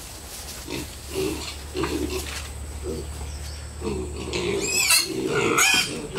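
Piglets grunting in short repeated grunts, with a higher wavering squeal about five seconds in.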